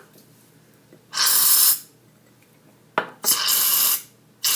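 Aerosol shaving cream can spraying in short hissing bursts: three squirts, the second starting with a sharp click, as foam is dispensed into the slime bowl. The can is running low.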